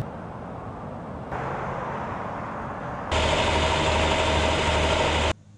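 Vehicle engine and traffic noise in three abrupt cuts, each louder than the last; the loudest carries a steady engine hum with a few steady higher tones and cuts off suddenly near the end.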